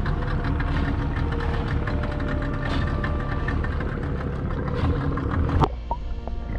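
Small boat's Yamaha outboard motor idling steadily. Near the end the sound turns suddenly muffled and dull as the microphone goes under the water.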